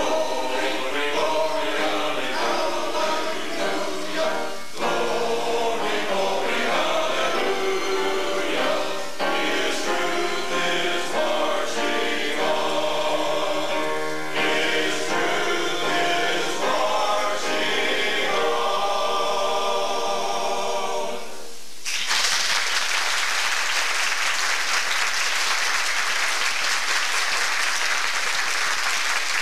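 Men's choir singing in harmony; the song ends about 21 seconds in and the audience breaks into applause.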